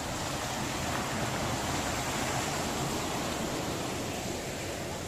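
River water flowing steadily, heard as an even rushing noise.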